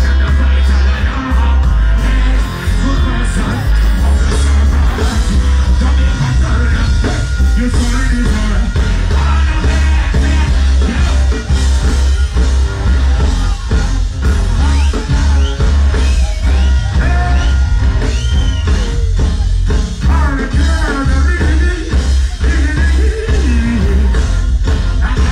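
Live band of drums, bass, guitars and keyboards playing loud through a concert PA, with heavy bass and a voice singing over the music in places.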